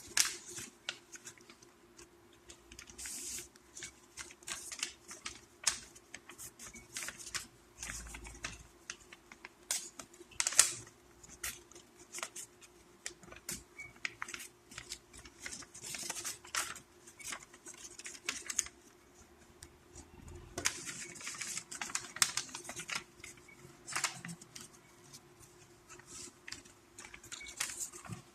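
A sheet of paper being folded and creased by hand into a paper airplane: irregular rustles, crackles and sharp taps as it is handled and pressed flat on a surface.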